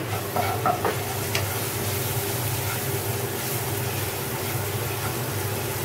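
Sliced onions sizzling as they fry in a pan, stirred with a wooden spatula, with a few light knocks of the spatula against the pan in the first second or so.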